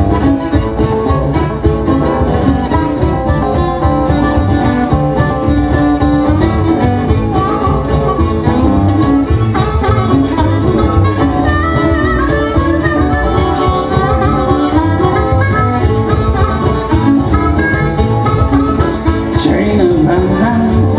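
Acoustic band playing live: upright double bass, acoustic guitar and cajón keep a steady rhythm while harmonica and violin play over it, an instrumental passage with no singing.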